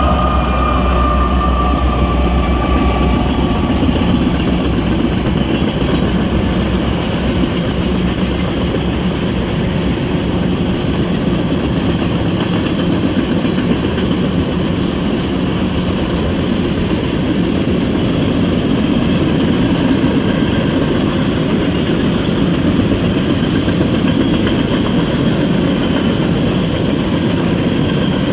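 Freight train passing at speed. The BNSF and Union Pacific diesel locomotives go by in the first few seconds with a deep engine rumble and a slightly falling whine. Then comes a steady rolling noise of tank cars on the rails.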